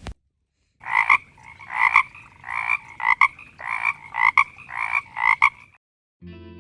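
A frog croaking over and over, about eight calls roughly two-thirds of a second apart, with a few sharp clicks among them. Music with steady guitar notes starts near the end.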